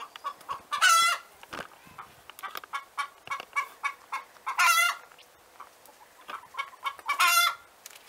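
Domestic hen cackling its egg song: a run of short clucks broken by three loud, drawn-out squawks, the call a hen makes after laying an egg.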